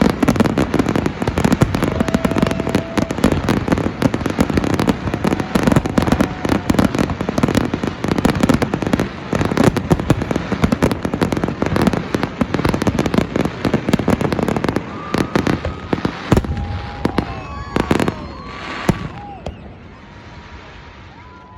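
Fireworks display: a dense, continuous run of bangs and crackling from many shells bursting at once. About three quarters of the way through it thins out to a few separate bangs.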